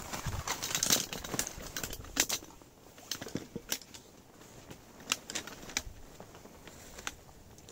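Aluminium shock-corded poles of a folding camp chair frame clicking and rattling as they are unfolded and snapped into the hub, with fabric rustling at the start. The clicks are sharp and irregular.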